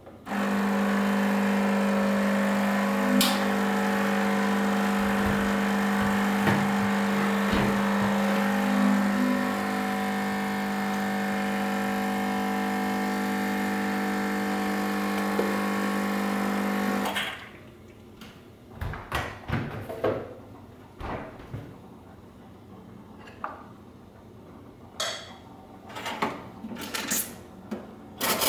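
Espresso machine pump running steadily while a shot is pulled, a loud even hum with a buzzing edge that starts just after the brew button is pressed and cuts off sharply after about seventeen seconds when the shot ends. After that, a few light clicks and knocks of cup and machine being handled.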